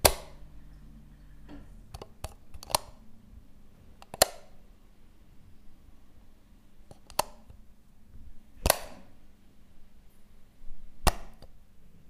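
Assorted on/off switches being pressed: a series of sharp clicks, about eight in all, one at a time with a cluster of three close together around two seconds in. A low hum cuts off about a second and a half in.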